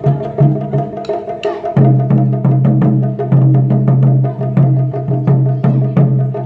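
Taiko ensemble drumming on barrel drums: sharp strikes several times a second over the drums' low ring. From about two seconds in, the strikes come close together and the ringing carries on almost without a break.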